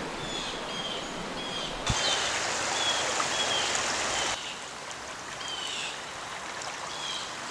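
River water running steadily, louder for about two and a half seconds near the middle, with a bird chirping repeatedly in short high notes.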